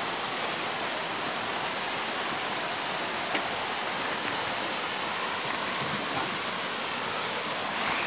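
Steady rushing of a waterfall spilling over rocks close by.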